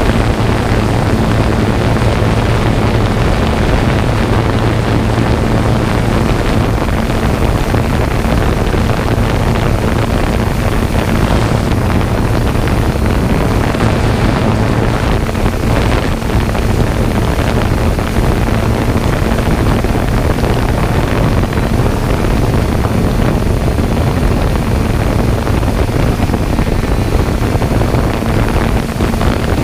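Steady, loud motor hum with a low drone and rushing, wind-like noise that doesn't change throughout.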